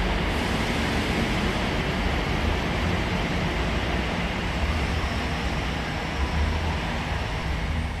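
1/10-scale RC flatbed tow truck driving over dirt: a steady, low vehicle running sound with a hiss over it, fading out near the end.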